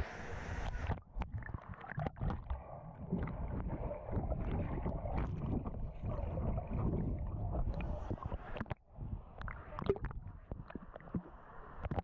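Water sloshing and bubbling around a swimmer's body and arm strokes, heard muffled through an action camera held under the surface. About a second in the sound turns dull as the camera goes under, with scattered clicks and knocks in the swirling rumble.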